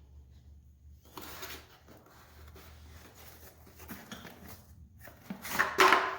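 Cardboard packaging being handled and opened: rustling and rubbing from about a second in, with a couple of louder scrapes or knocks near the end.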